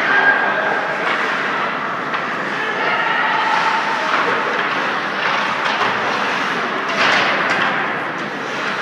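Ice hockey game sound inside a rink: a steady hiss and scrape of skates on the ice with faint spectator voices. It swells into a louder rush of noise about seven seconds in.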